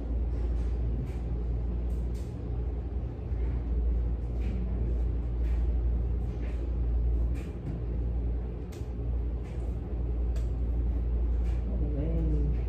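Steady low hum of room noise with faint, distant talk from two men and scattered light clicks; one voice comes through more clearly near the end.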